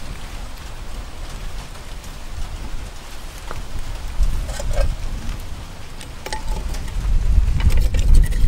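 Wind buffeting the microphone in gusts, stronger in the second half, with scattered light clicks and knocks.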